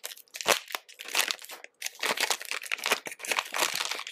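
Clear plastic wrapping crinkling in quick, irregular crackles as hands pull it off a stack of Play-Doh tubs.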